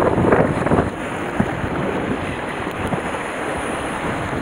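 Sea surf washing and churning against a rocky shore, with wind buffeting the microphone. The wash is louder for about the first second, then steadies.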